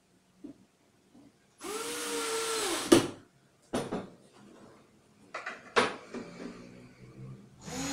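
Cordless drill/driver driving a screw into a melamine panel, whirring up to speed and back down for about a second and ending in a sharp click. A few knocks follow as the drill is set down and the panel is handled, and another short whir comes near the end.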